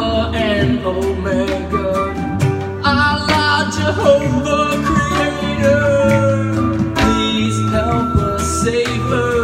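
Live acoustic guitar and singing over a low sustained drone.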